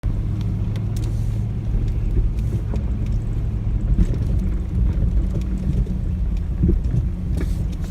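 Off-road vehicle engine running steadily at low speed, a constant low hum, with scattered light clicks and knocks from the vehicle jolting over the trail.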